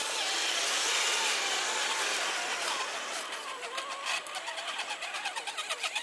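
Electric motors and gearing of radio-controlled scale crawler trucks whining, the pitch wavering up and down with the throttle. From about halfway in, a rapid, even clicking joins the whine.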